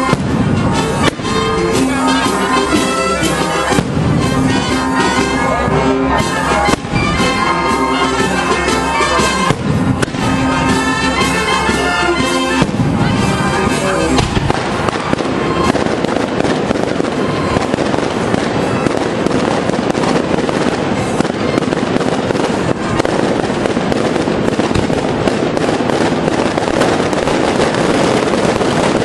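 Brass band playing, with scattered firecracker bangs over it; about halfway through, a dense, continuous barrage of firecrackers takes over and drowns out the band.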